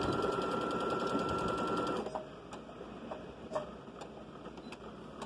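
Domestic electric sewing machine stitching a seam at a steady speed, stopping abruptly about two seconds in. A few light clicks follow.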